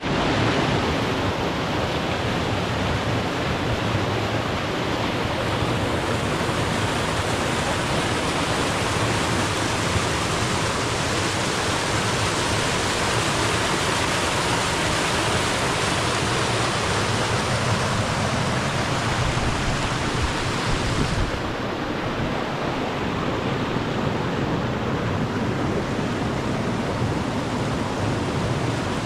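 Waterfall or fast-flowing mountain water, a steady rushing sound that starts abruptly. About 21 seconds in the highest hiss falls away and it becomes slightly duller.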